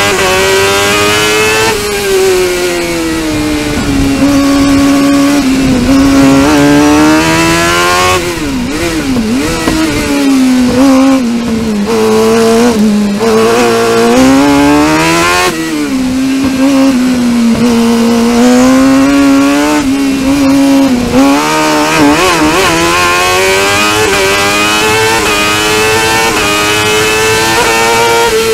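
Suzuki GSX-R750 inline-four motorcycle engine in a crosskart, heard from the cockpit, running at high revs under racing load. Its pitch climbs as it accelerates, drops sharply when it backs off and shifts, and climbs again, reaching its highest near the end.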